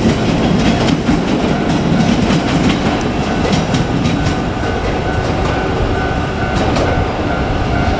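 JR Kyushu 817-series electric multiple unit running past on the rails, with a steady rumble and repeated clicks of wheels crossing rail joints.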